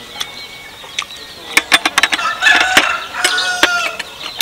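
A rooster crowing, a pitched call held at a steady pitch in the second half, mixed with a run of sharp clicks and clinks of a metal fork and spoon against a plate.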